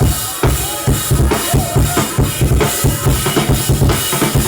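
Worship band music: a drum kit keeping a steady beat, with bass and deep kick-drum hits underneath.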